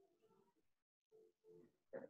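Near silence: room tone with a few faint, indistinct sounds.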